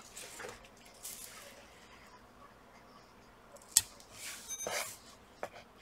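Faint handling of double-sided tape being pressed along the edge of a laptop's display lid, with a single sharp click a little past halfway and a short rustle after it.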